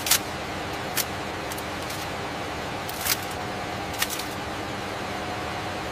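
Steady machine hum with a few held tones, broken by four sharp clicks, the first the loudest.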